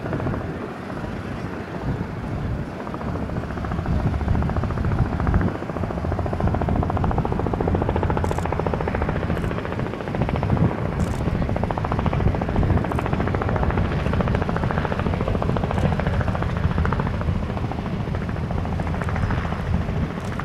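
Aircraft noise: a continuous rumble that swells about four seconds in and then holds, with a fine rapid pulsing in the middle.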